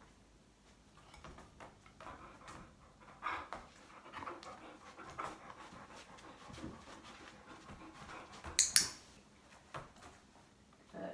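Standard poodle panting while it moves about on the floor, with soft shuffling steps. A short, sharp noise stands out a little under nine seconds in.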